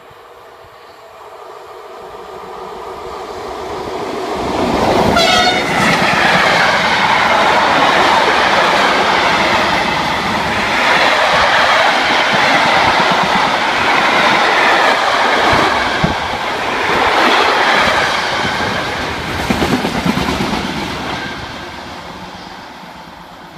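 SNCF BB 26000 electric locomotive hauling an intermodal freight train of container and tank-container wagons, growing louder as it approaches, with a short horn blast about five seconds in as the locomotive reaches the platform. The long string of wagons then rushes past with steady wheel-on-rail noise, fading near the end.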